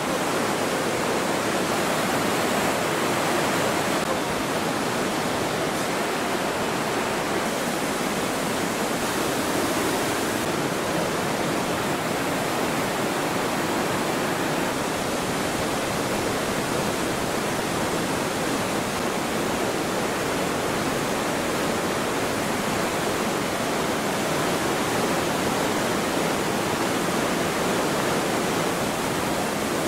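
Glacial river torrent rushing over boulders in a narrow rock gorge: a steady, unbroken rush of white water.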